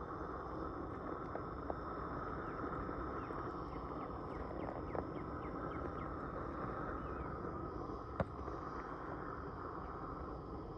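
Propane torch wand's flame burning with a steady rush, with faint scattered ticks through the middle and one sharp click about eight seconds in.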